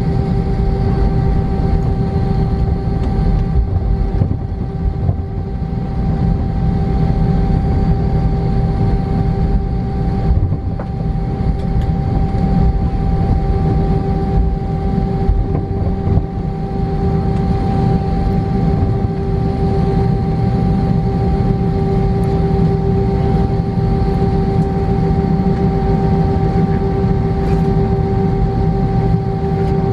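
Airbus A320 cabin noise while taxiing: the engines' steady hum at idle thrust over a low rumble from the wheels rolling along the taxiway. The pitch holds steady, with no spool-up.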